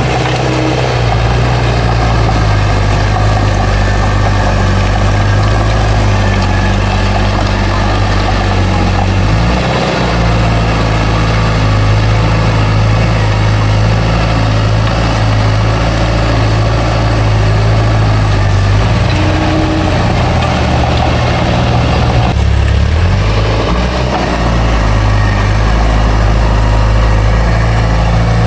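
Heavy diesel engine of a bulldozer running steadily, its note shifting briefly about ten seconds in and again a little after twenty-two seconds.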